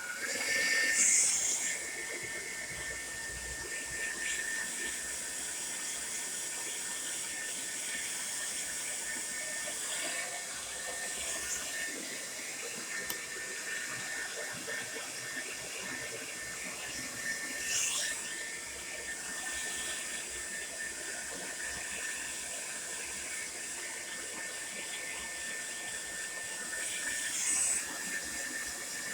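Tresemme Salon Smooth Professional hair dryer running steadily: a constant rush of air with a thin, high, steady motor whine. It swells louder briefly about a second in, again around the middle, and near the end.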